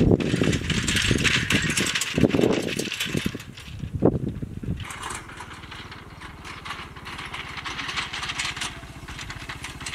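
Motorcycle pulling a trailer cart: rattling and knocking for the first few seconds, then, from about five seconds in, its small engine running steadily as it comes closer.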